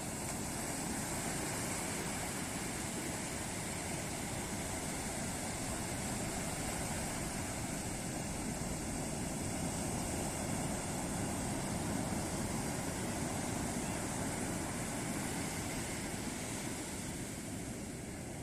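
Ocean surf breaking on a beach: a continuous rushing roar of waves that swells gently and eases again.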